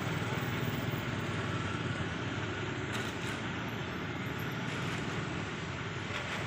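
Steady rumbling vehicle noise, even throughout, with a couple of faint clicks about halfway through.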